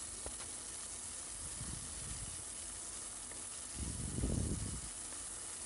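Chopped tomatoes with onions and spices sizzling in hot oil in a cooking pan, a steady even hiss. A brief duller, lower sound rises and falls about four seconds in.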